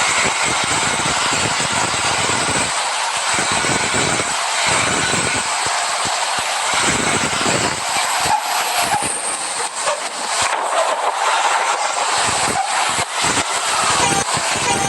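Hino RK bus on the move: steady engine and road noise, with uneven low rumbles coming and going.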